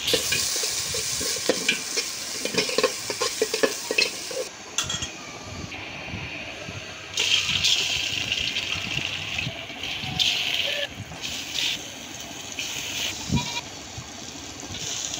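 Onion and whole spices sizzling in hot oil in an aluminium pot while a metal spatula stirs and scrapes. Kalijira rice is then poured in and stirred with a metal spoon. The sizzle dips for a couple of seconds near the middle and comes back louder about halfway through.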